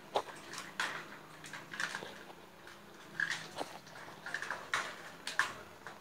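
Young Indian ringneck parakeets pecking at a plastic feed bowl and the wire cage: irregular sharp clicks and taps from their beaks, with a few short chirps in between.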